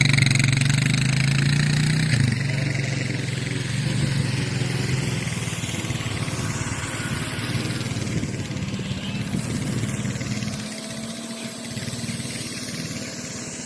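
A vehicle engine running steadily with a low hum, loudest for the first couple of seconds and a little quieter after.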